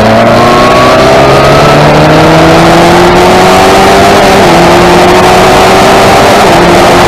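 Single-seater racing car's engine accelerating at full volume, its pitch climbing steadily. The pitch drops slightly about four and a half seconds in and again near the end, at upshifts, then climbs on.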